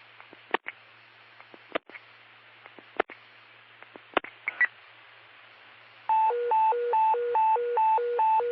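Fire-dispatch radio channel: hiss and hum with scattered sharp clicks, then about six seconds in a loud hi-lo alert tone starts, two pitches alternating about two and a half times a second, the tone that sounds ahead of a dispatch to alert the fire station.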